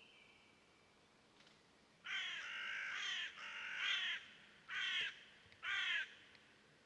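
A crow cawing four times, the first two calls drawn out and the last two short.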